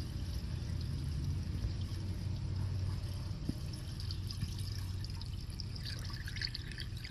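Liquid cleaner poured from a plastic bottle into an engine's oil filler neck, trickling and splashing down into the engine, over a steady low hum. The splashing grows clearer from about four seconds in.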